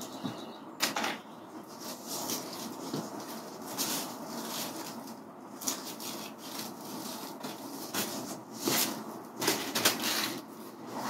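Old mosquito screen mesh, patched with sticky tape, being peeled off an aluminium screen frame and folded up by hand: irregular rustling and crinkling with several sharper bursts, the loudest near the end.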